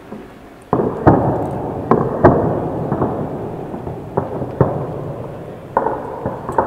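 Glass marbles rolling and clattering down a plastic building-block marble track: a rumble with sharp clicks of marble on plastic, starting about a second in and swelling again near the end.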